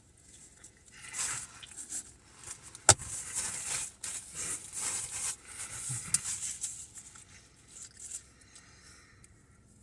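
Paper napkins and packaging rustling as they are handled, with one sharp click about three seconds in. The rustling dies down over the last couple of seconds.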